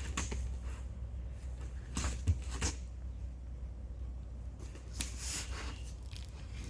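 Rustling and light knocks from books and foam packaging being handled, in three short spells, over a steady low hum.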